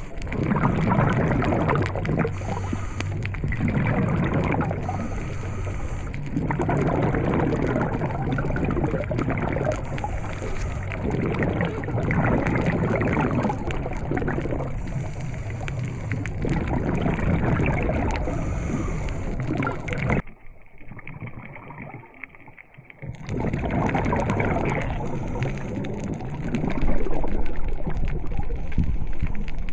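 Water and bubbling heard underwater, swelling and easing every few seconds. About two-thirds of the way through it drops to a quieter, duller stretch for about three seconds before the noise comes back.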